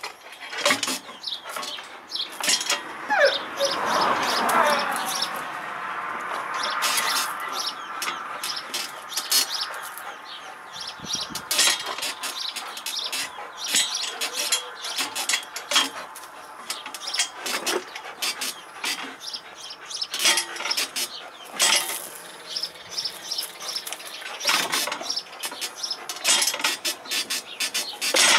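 Springpole rig creaking and clicking over and over as a dog hangs from the rope and tugs on it, with a longer squeal about four seconds in.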